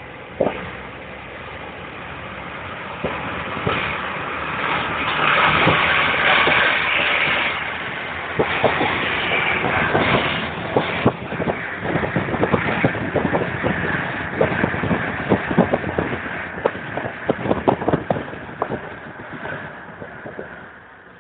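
Cabin noise of an old Peugeot car on the move with the windows open: engine, tyre and wind noise, swelling a few seconds in, with many short knocks and rattles through the middle and later part.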